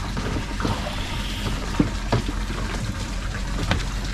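Water sloshing and trickling with scattered small splashes, over the steady low hum of a small engine running.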